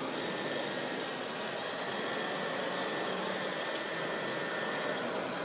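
Radio-controlled Volvo EC480D model excavator working its boom, with a steady high electric-motor and hydraulic-pump whine over a constant hall hum.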